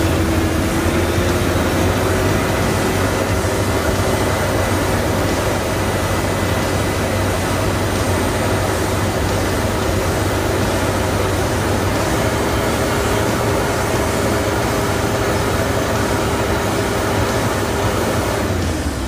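Isuzu Trooper 4JX1 turbodiesel four-cylinder running with its exhaust rushing out of the tailpipe right at the microphone, a steady tone over a low hum. The tone dips near the end as the revs come down. This is a smoke check after a damaged injector nozzle tip was replaced.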